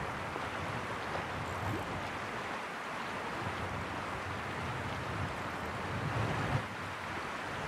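Steady outdoor wash of wind and water: gusts buffet the microphone with low rumbles while water laps over the stones in the shallows.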